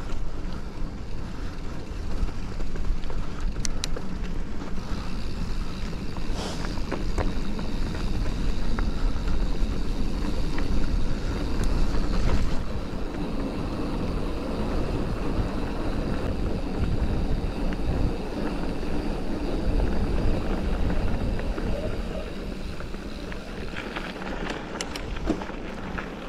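Mountain bike riding along a dirt trail: a steady rumble of tyres over the ground, with a few sharp clicks or rattles from the bike, and wind on the microphone.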